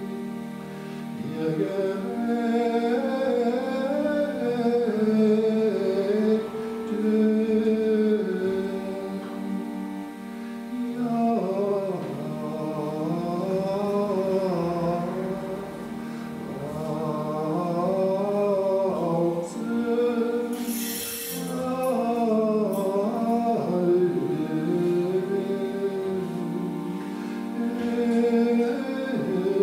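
Gregorian chant sung in German, a melodic line rising and falling over long sustained low accompanying notes. A brief hiss cuts across it about twenty seconds in.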